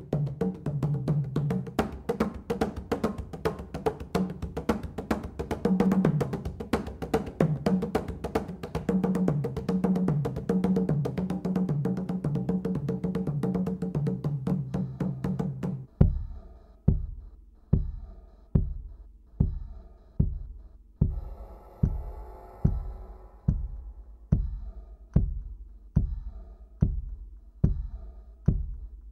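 Percussion-driven music with a fast drum pattern over a deep bass line. About halfway through it gives way to single deep drum beats, a little more than one a second, each dying away.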